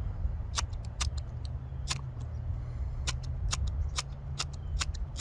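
Repeated short, sharp scrapes of a striker on the flint spark rod of a Zippo fire-starting multi-tool, throwing sparks at tinder that will not catch. A few strikes at first, coming faster from about halfway. Wind rumbles on the microphone throughout.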